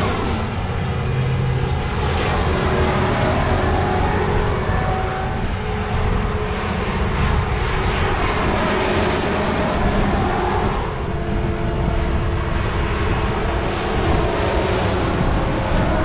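Case IH 8250 combines driving past one after another on a dirt road, their diesel engines running with a steady, loud drone.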